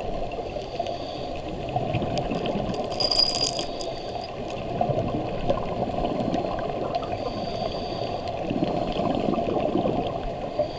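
Underwater sound picked up by a camera on a reef at night: a steady watery wash with gurgling bubbles and scattered small clicks and crackles, plus two brief high hisses about three and seven seconds in.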